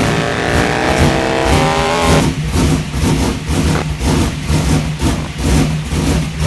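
Drag car engine revving with its pitch climbing, then about two seconds in dropping back to a choppy, lumpy run, pulsing several times a second.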